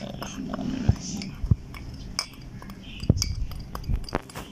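A metal spoon clinking and knocking against a glass mixing bowl and spice containers, in a few scattered, uneven taps.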